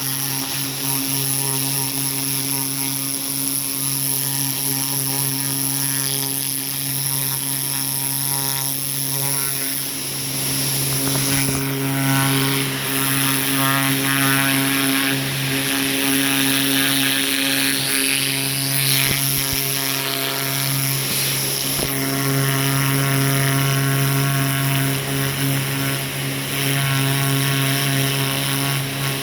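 A small pressure washer running steadily with a hissing water spray washing a turkey skin. The spray grows louder and changes in the middle.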